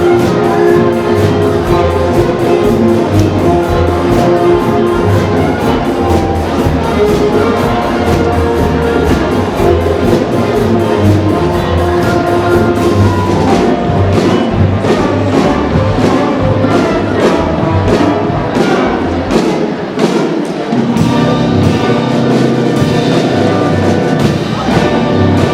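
Orchestral-style music with brass and a steady, driving percussion beat.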